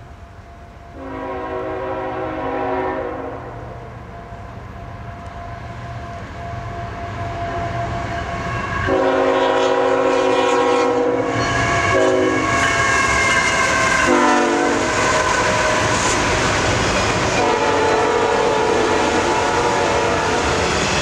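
Horn of approaching CSX diesel freight locomotives, sounded as a series of blasts: two long ones, two short ones, then a longer, softer one near the end. Under the horn, engine and wheel noise grows louder as the train draws near, then stays steady as the autorack cars roll past on the rails.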